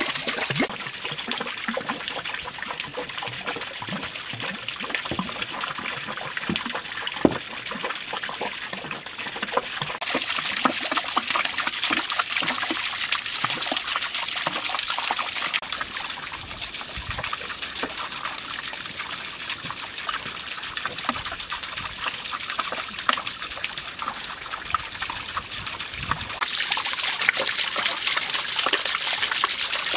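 Water pouring from cut bamboo spouts and a turning bamboo waterwheel, trickling and splashing into a shallow stone-lined pond, with many small drips and splashes. It grows brighter and louder about ten seconds in and again near the end.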